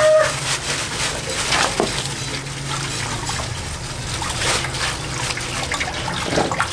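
Water trickling and splashing, with a few short knocks over a low steady hum.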